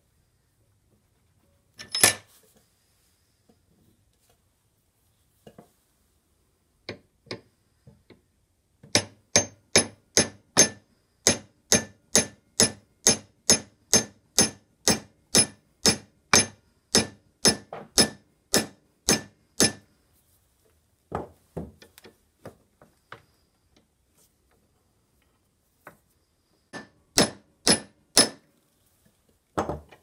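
Small hammer striking metal: a few scattered taps, then a steady run of about two dozen taps a little over two a second, each with a short, high metallic ring, and a few more taps near the end.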